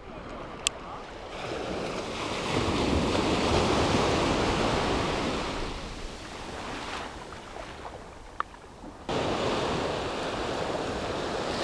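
Sea waves washing in shallow surf: a wash swells over a couple of seconds and slowly falls away, with wind on the microphone. About nine seconds in, the sound jumps suddenly to a steady louder wash.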